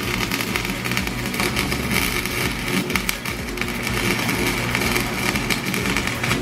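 Lincoln Electric wire-feed welder laying a weld bead on an exhaust pipe: a steady crackling buzz packed with rapid sharp pops.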